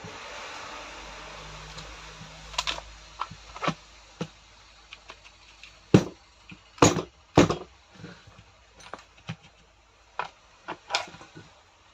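Irregular clicks and knocks of metal parts and hand tools being handled while a rotary hammer is put back together, after a soft rushing noise over the first couple of seconds.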